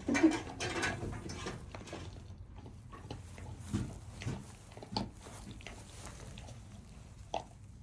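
Great Pyrenees puppies stirring in straw: a brief whimper in the first second, then soft rustling with a few scattered sharp clicks.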